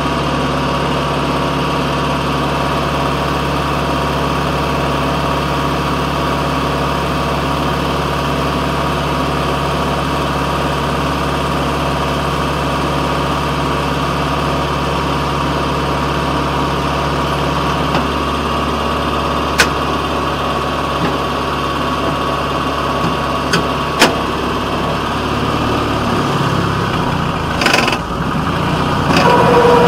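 Engine of a railroad fire patrol car idling steadily while it stands on the track, with a few sharp clicks in the last third and a change in the engine's note near the end.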